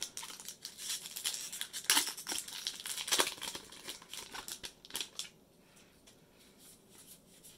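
Foil Magic: The Gathering booster pack wrapper being torn open and crinkled, a quick run of crackles for about five seconds, loudest around two and three seconds in. After that come only soft, sparse sounds of the cards being handled.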